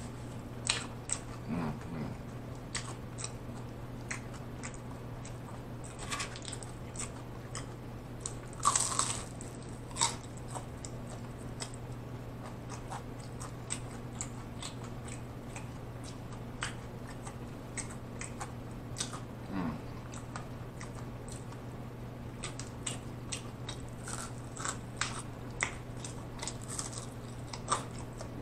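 Close-miked chewing and biting of crispy fried chicken: irregular crunchy bites and wet mouth clicks, the loudest bite about nine seconds in. A steady low hum runs underneath.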